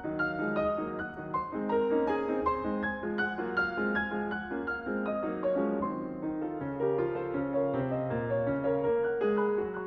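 Background piano music: a gentle melody of steadily played single notes and chords.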